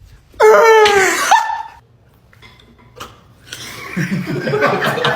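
A person's high-pitched vocal sound effect, sliding down in pitch for about a second. Then, from about three and a half seconds in, a run of laughter.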